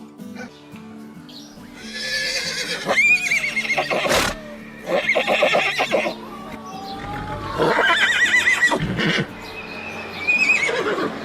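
Horses neighing about four times, each whinny with a quavering, wavering pitch, over steady background music.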